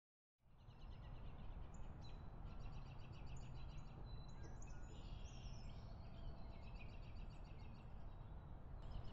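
Outdoor ambience of birds chirping in quick repeated phrases over a steady low background rumble, coming in from silence about half a second in.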